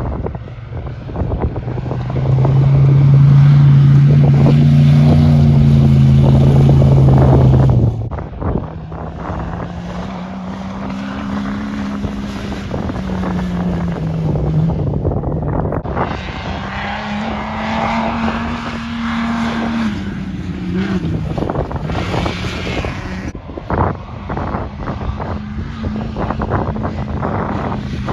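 Off-road race trucks' engines running hard as they climb and pass on a dirt course, the engine pitch rising and falling with throttle and shifts; loudest about two to eight seconds in, with the sound jumping abruptly between separate passes. Wind buffets the microphone.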